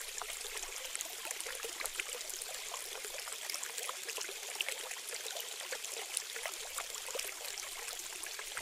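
Water trickling and bubbling: a steady fizz of many tiny crackles and pops, with no deep sound under it.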